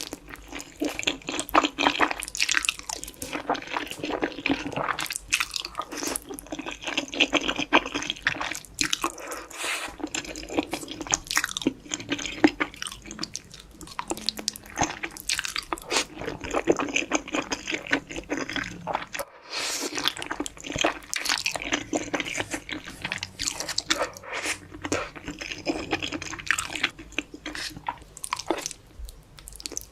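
Close-miked wet chewing and mouth sounds of someone eating Korean instant noodles, with irregular crisp clicks and squelches; brief pauses about ten seconds in and again just before twenty seconds.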